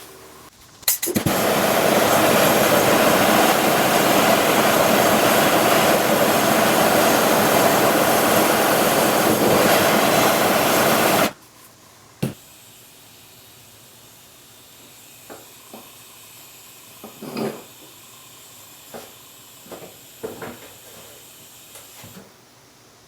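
TIG welding arc on a steel ball bearing and stem: the arc strikes with a sharp crack about a second in and runs as a loud, steady hiss for about ten seconds, then cuts off abruptly. A faint gas hiss and a few small clicks and taps follow.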